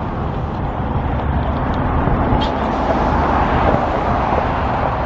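Steady road traffic noise, cars going by, getting a little louder about two seconds in.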